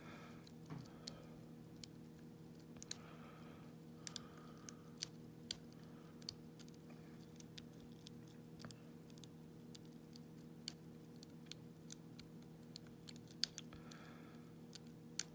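Small, irregular metal clicks and ticks of a lock pick working the pins of an Iseo lock cylinder under light tension, over a steady low hum.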